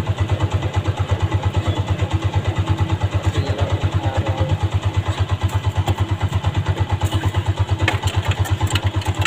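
Small vehicle engine running steadily with a rapid, even low-pitched pulse.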